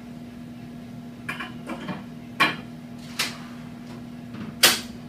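A handful of sharp clicks and clunks, the loudest near the end, as an X-ray image receptor is released and slid out of an upright wall bucky's tray, over a steady low hum.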